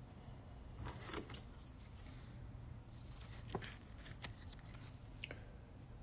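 Faint clicks and rustles of a trading card being handled and slid into a clear plastic holder, a few scattered ticks about a second in and a cluster between about three and five seconds, over a low steady hum.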